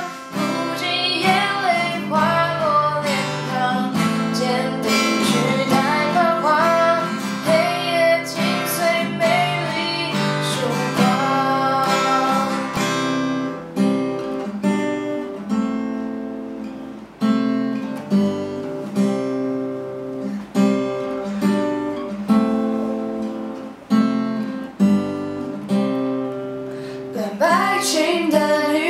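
Acoustic guitar accompanying two people singing a Mandarin pop song. About halfway through the singing stops and the guitar plays an instrumental interlude alone; the voices come back in near the end.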